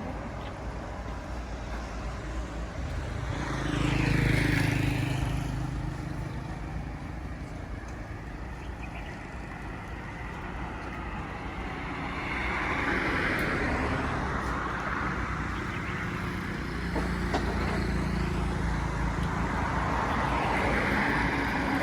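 Road traffic, with vehicles passing one after another, each swelling up and fading: one about four seconds in, another past the middle and a third near the end.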